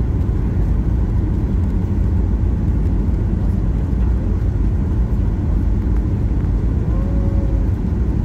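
Steady low rumble of airflow and CFM56 engine noise inside the cabin of a Boeing 737-800 during its descent, heard from a window seat over the wing.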